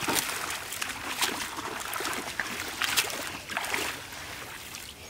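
A cast net hauled up out of shallow pond water at the bank, with water splashing and streaming off the mesh in irregular splashes that die down near the end.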